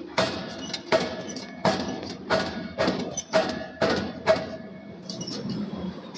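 Hammer blows on hot steel at an anvil: about eight sharp strikes, roughly two-thirds of a second apart, each with a short metallic ring, giving way to lighter taps near the end.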